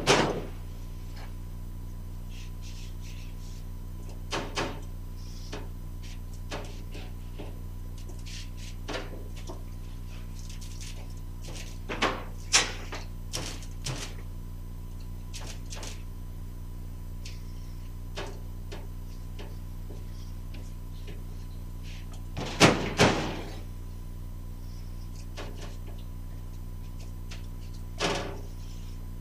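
Scattered knocks and clunks on an FJ40 tub's sheet-metal floor pan as it is worked by hand to lie flat, with a louder cluster of knocks about three quarters of the way through. A steady electrical hum runs underneath.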